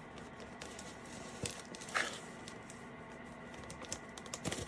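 Scattered rustling, crinkling and light knocks of a shipping package being handled and opened by hand, with a brief tearing sound about two seconds in.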